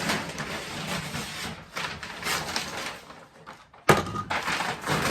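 Cardboard shipping box and cardboard pieces being handled, with uneven rustling and scraping and one sharp knock a little before four seconds in.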